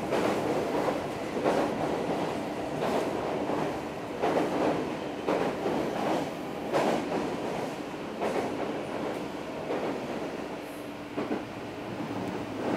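Running sound of an Odakyu 4000 series electric train, heard inside a motor car as it crosses a steel truss bridge: a steady rumble from wheels and track, with repeated clacks over rail joints and a faint steady hum.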